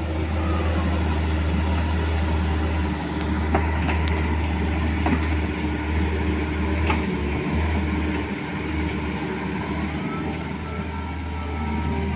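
Excavator's diesel engine running steadily under digging work, with a few sharp knocks about a third and halfway through.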